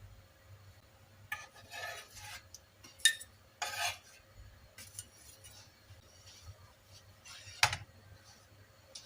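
Kitchen utensils and dishes clinking and scraping in a few short clatters. The loudest come about three seconds in and again near the end.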